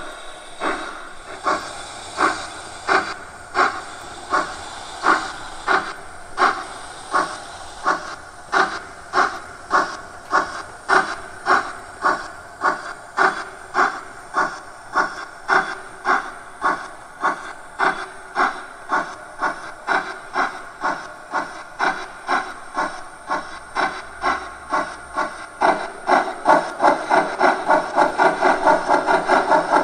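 Steam-exhaust chuffs from the sound decoder of a Gauge 1 DR Class 52 steam locomotive model, played through its loudspeaker over a steady hiss. The beats come slow and even at first, about one and a half a second, then quicken. Near the end they run at three to four a second and grow louder as the locomotive speeds up.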